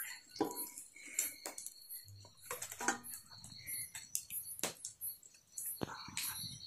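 Scattered light clinks and taps of a knife and fingers against an aluminium basin as a small carcass is cut up in it, with soft wet handling sounds.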